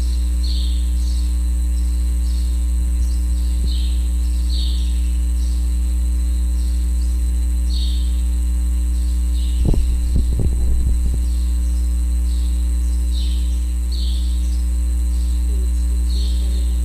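Loud, steady low electrical hum, with faint short high chirps recurring in pairs every few seconds and a brief cluster of soft knocks about ten seconds in.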